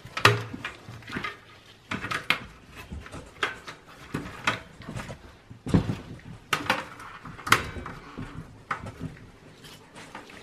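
Irregular clicks, knocks and light clatter of cables, plastic clips and connectors being pulled and handled inside an emptied sheet-steel desktop computer case as it is taken apart.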